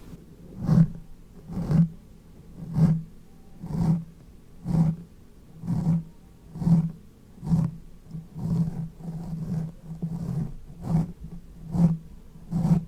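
Close-microphone ASMR sounds: a run of soft, low pulses at about one a second, coming closer together in the middle.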